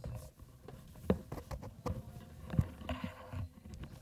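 Irregular footsteps and soft knocks of people getting up and moving about in a hall, about one every half to one second.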